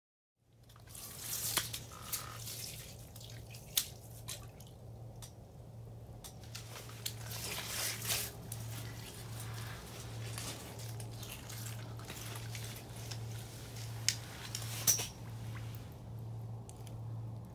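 Water dripping and splashing in a hole through the ice as a fish is handled at the hole, with several sharp clicks and knocks. A steady low hum runs under it.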